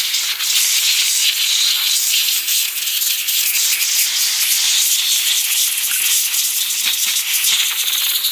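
Can of compressed air spraying in a loud, continuous hiss that flickers as the jet moves, blowing dust out of a computer keyboard's pad.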